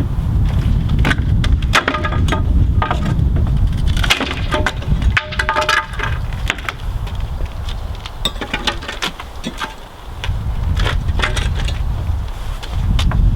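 Pallet boards being levered off with a Roughneck Pallet Buster demolition bar: repeated sharp cracks, creaks and splintering of wood as the nailed boards give, with short squeaks in the middle, over a steady low rumble.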